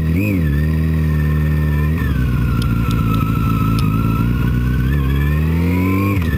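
Motorcycle engine running under way, heard from the rider's seat. Its pitch falls sharply about two seconds in and holds steady, then rises as the bike accelerates and drops sharply again near the end.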